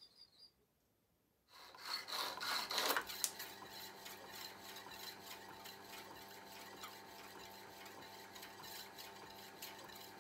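A First World War-era power hacksaw (donkey saw) starting up about a second and a half in: a loud burst as its electric motor comes on, then a steady hum with the regular strokes of the saw frame driven back and forth.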